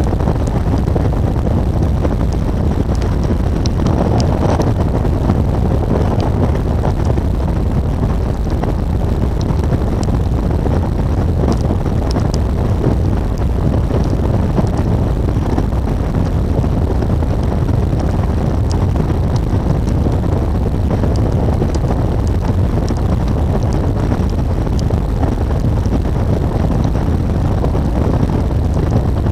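Adventure motorcycle riding at steady road speed: the engine running under a steady rush of wind noise, with no change in pace throughout.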